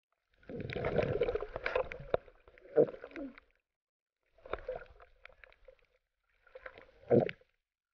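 Muffled water sloshing and gurgling against an underwater camera housing as a snorkeler swims, in three bursts with a few sharp knocks.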